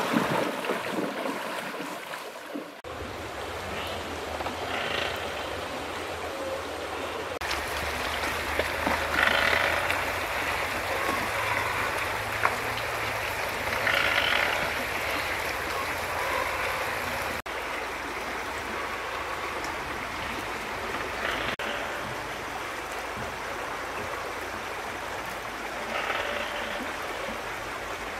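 Flowing water of a shallow stream, a steady rushing that changes tone abruptly several times, with a few short louder noises on top.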